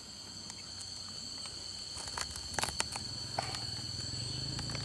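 A durian's spiny husk being pried apart by hand, giving a few short sharp cracks, over a steady high insect drone.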